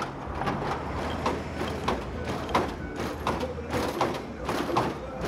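Lowrider cars with hydraulic suspension hopping: repeated clanks and knocks, about two a second, over the steady low hum of the engines.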